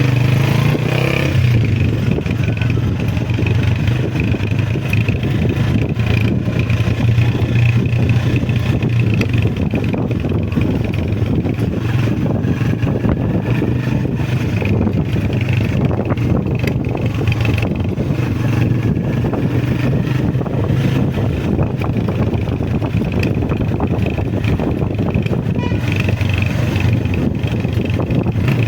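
Honda CG125's single-cylinder four-stroke engine running steadily on the move, a low even engine note under a constant rush of road noise.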